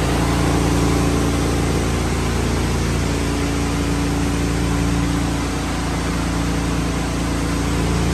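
Truck-mounted pressure-washing rig running: a steady engine and pump drone, with a constant hiss over it.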